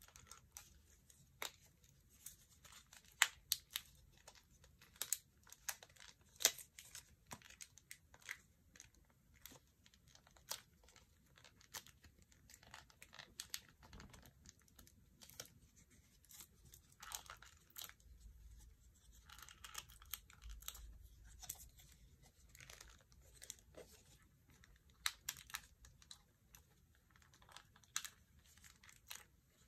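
BlackBerry Q10's plastic and metal housing parts clicking and scraping as the phone is handled and pried apart with the fingers and a thin pry tool: irregular sharp clicks, with a short stretch of scraping a little past the middle.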